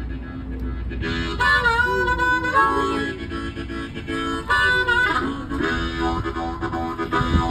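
Harmonica played into a handheld microphone, an instrumental break in a song: phrases of chords and single notes, some of them bending in pitch.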